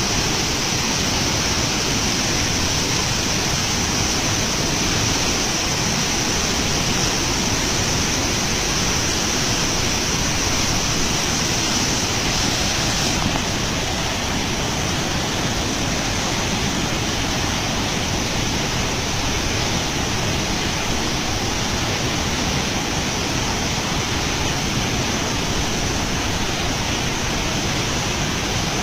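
Rushing river water, a steady even rush.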